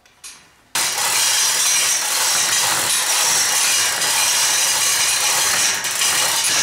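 Chain hoist hauling a steel-tube buggy frame up off the floor: a loud, continuous mechanical noise that starts abruptly about a second in and keeps going without a break.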